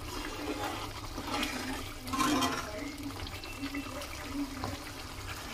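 Onion paste sizzling and bubbling in hot oil in an aluminium kadai, stirred with a metal slotted spoon. A steady frying noise, briefly louder about two seconds in.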